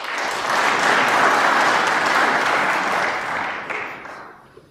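Audience applauding. It starts suddenly, holds for a few seconds, then dies away towards the end.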